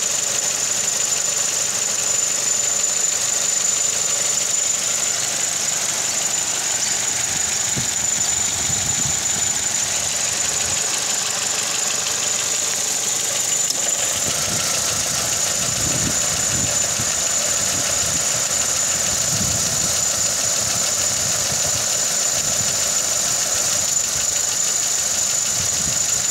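MG3 petrol engine idling with the bonnet open, running steadily with a thin high-pitched whine over it. A low shuddering vibration comes and goes in surges, strongest from about halfway through: the intermittent vibration and rattle at idle that the owner is trying to have diagnosed.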